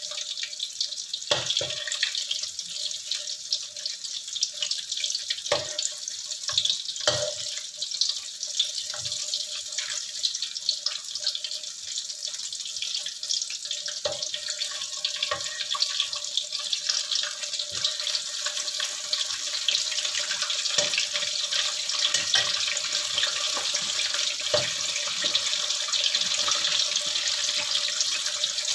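Cempedak fritters deep-frying in hot oil in a wok: a dense, steady crackling sizzle that grows a little louder in the second half. A metal spatula knocks and scrapes against the wok now and then, mostly in the first half.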